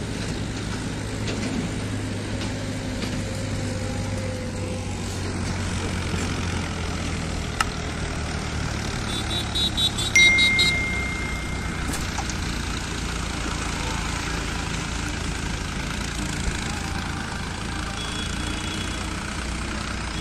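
Diesel farm tractors running at low speed while hauling trolleys loaded with sugarcane past, with a steady low engine hum and road traffic. About halfway through there is a short, high beeping sound followed by a held high tone.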